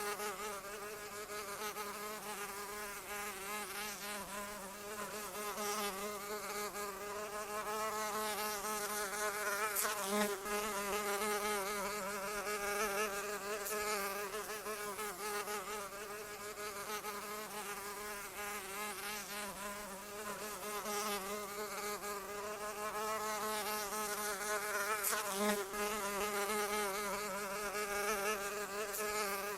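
Fly buzzing in flight, one continuous drone whose pitch wavers gently up and down, swelling and fading a little in loudness as it moves.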